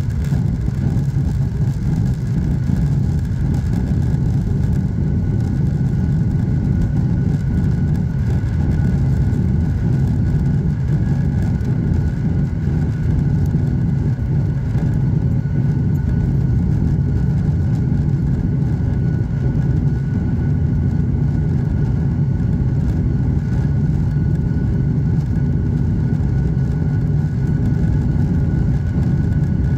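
Boeing 737-900ER's CFM56-7B turbofan engines at takeoff thrust, heard inside the cabin over the wing through the takeoff and initial climb. A steady, deep engine noise with a faint steady whine above it.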